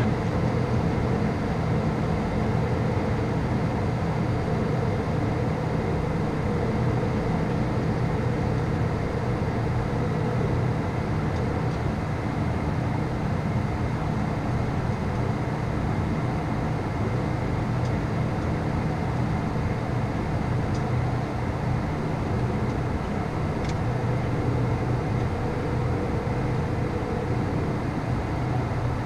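Steady cockpit noise of a Beechcraft Premier 1A business jet on final approach: a constant low hum from its twin Williams FJ44 turbofans mixed with the rush of airflow, unchanging throughout.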